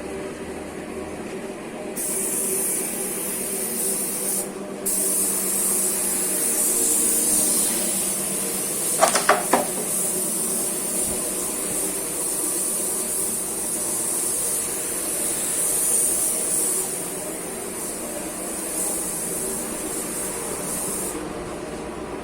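Compressed-air spray gun hissing as it sprays, starting about two seconds in, breaking off briefly near five seconds and stopping near the end, over a steady mechanical hum. Three quick knocks sound about nine seconds in.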